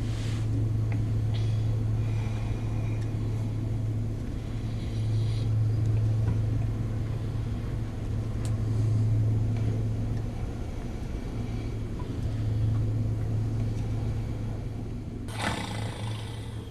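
A low droning rumble that swells and fades every three to four seconds, with a short rustling noise near the end.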